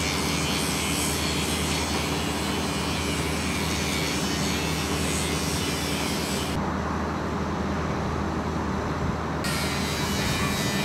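Diesel engine of an excavator running steadily: a low, even hum with no change in pitch.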